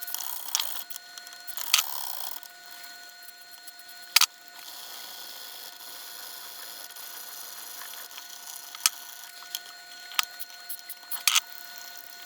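Scattered light clicks and taps of hands and tools working on a stereo receiver's controls, the sharpest about four seconds in, over a faint steady hiss and a thin steady whine.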